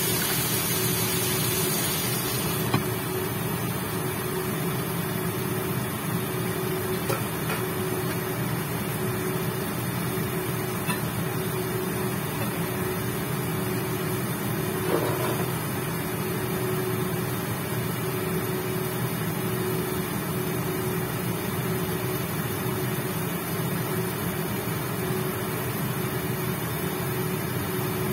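Induction cooktop running with a steady fan hum and a thin constant tone, while chicken pieces sizzle in the pan. The sizzle is brighter for the first couple of seconds and then muffled once the pan is covered. A light clink comes about three seconds in and another around fifteen seconds.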